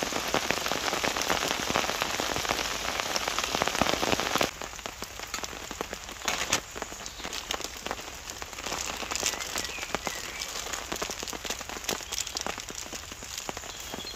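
Heavy, steady rain pattering on a camouflage army basha tarp overhead and on the leaf-covered forest floor. About four and a half seconds in it turns quieter, with separate drops standing out against the hiss.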